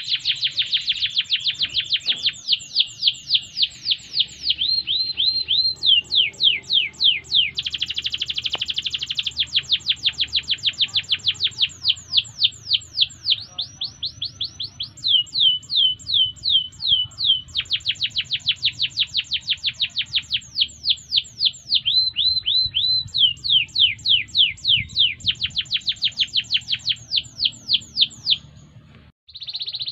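Domestic canary singing a long, continuous song. Trills of falling whistled notes repeat several times a second, alternating with buzzier rolls. The song breaks off briefly near the end.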